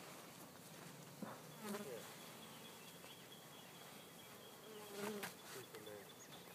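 Honeybees buzzing as they fly past close by, two short wavering passes, about a second and a half in and again about five seconds in.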